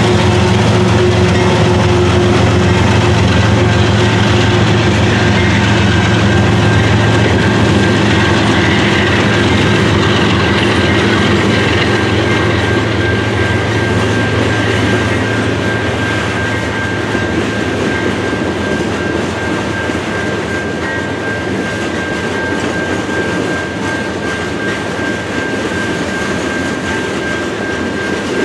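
Freight train passing close by. A diesel locomotive's engine hum fades in the first few seconds, then a long string of open-top hopper cars rolls past with wheel and rail noise. A steady high squeal joins about ten seconds in, and the noise slowly gets quieter.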